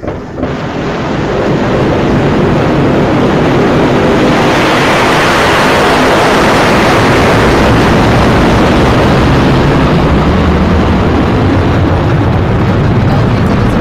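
Astra Rocket 3.3's five first-stage Delphin engines igniting and running at liftoff: a loud, dense rushing noise that starts suddenly, builds over the first couple of seconds, then holds steady as the rocket climbs off the pad.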